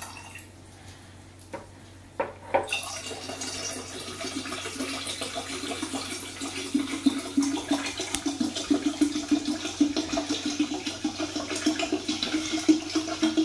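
Club soda poured from a plastic bottle into a glass pitcher holding a dark syrup mixture: a steady splashing, fizzing pour that builds from about three seconds in. A few sharp clicks come just before it.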